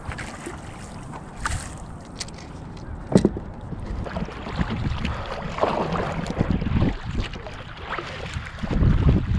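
Kayak paddle strokes splashing in the lake water, with wind rumbling on the microphone. A sharp knock about three seconds in, and louder strokes in the second half.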